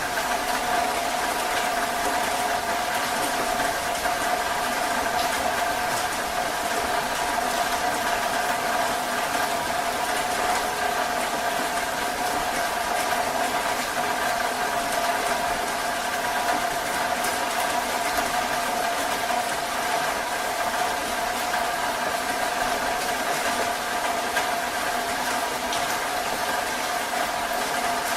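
Heavy rain falling steadily and without a break, with a steady hum of several tones running underneath.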